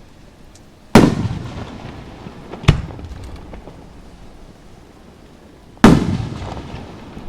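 Aerial firework shells bursting: three booms, the first and last trailing off in a long rolling echo, the middle one a short sharp crack.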